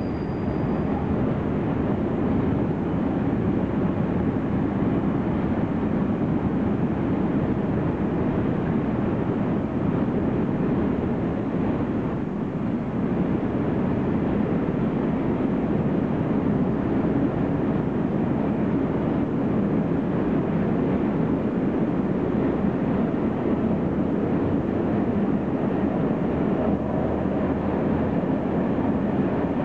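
A freight train's wagons rolling past, with a steady rumble of wheels on the rails.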